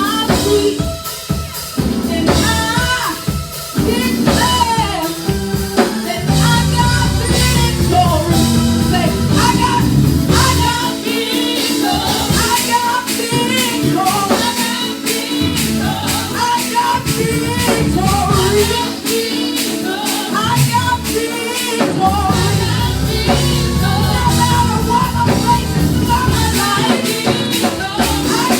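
Live gospel worship music: singing over a band with a drum kit and a heavy low bass end.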